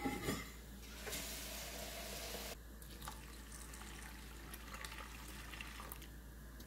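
Water poured into a stainless steel bowl of broken wheat and lentils to wash and soak them. There is a short clatter at the start. The pour is loudest for about a second and a half, then drops off abruptly to a quieter running and splashing into the water already in the bowl.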